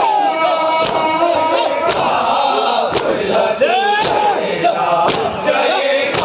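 A crowd of Shia mourners chanting a noha together, with chests struck in unison about once a second (matam).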